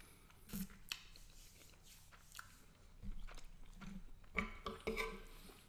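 A person chewing a mouthful of garlic butter shrimp and angel hair pasta close to the microphone, with soft, scattered wet mouth clicks. The chewing gets louder near the end.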